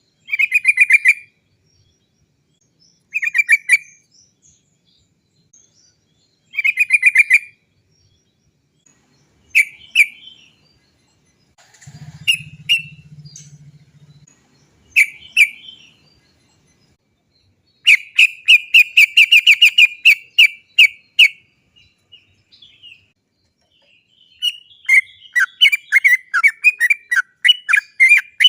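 Yellow-vented bulbul singing: short bubbly phrases of rapid chattering notes every few seconds, then longer fast rolling runs of notes from about two-thirds of the way in.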